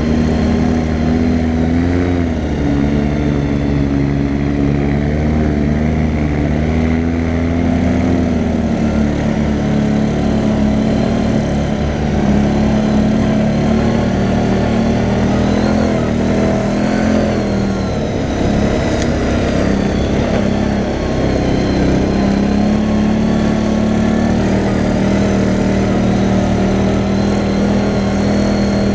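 CFMoto 500A ATV's single-cylinder engine running while riding, its pitch rising and falling with the throttle over the first several seconds, then holding steadier.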